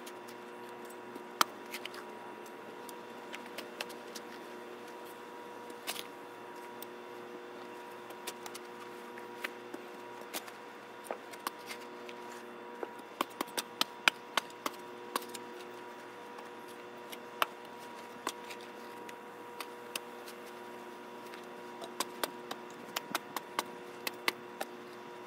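Shovel digging into the ground: scattered sharp clinks and scrapes of the blade, coming thickest about halfway through, over a faint steady hum.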